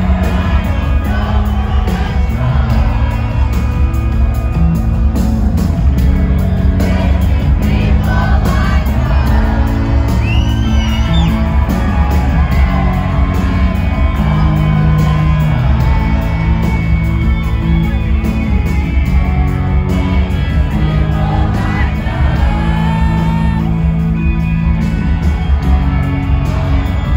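Rock band playing live and loud: lead vocals over electric guitar, bass guitar and a steady beat, with heavy bass.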